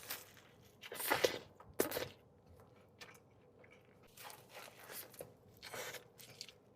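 Close-up eating sounds: bites into a Mexican hot dog loaded with bacon, grilled onions and peppers, two louder bites about one and two seconds in, followed by softer chewing.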